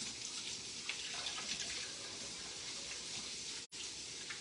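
Kitchen faucet running steadily into the sink as hands are washed under it. The sound drops out for an instant about three and a half seconds in.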